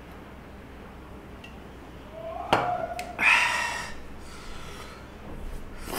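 A stainless steel tumbler is set down on a glass tabletop with a sharp clink about two and a half seconds in. A loud breathy exhale follows after drinking water, with a shorter breath near the end.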